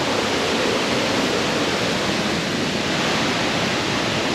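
Steady rushing of flowing water, an even unbroken roar.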